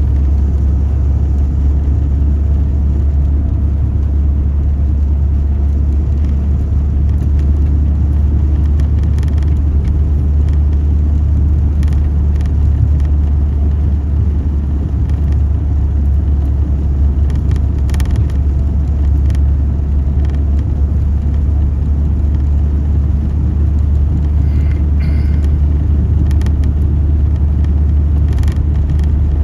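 Steady low rumble of a car on the move, engine and road noise.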